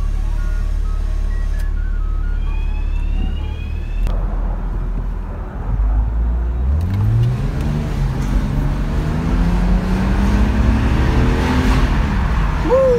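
BMW 1 Series engine heard from inside the cabin. It idles steadily for the first few seconds, then revs up as the car pulls away and accelerates, its pitch climbing over several seconds. A brief falling tone comes near the end.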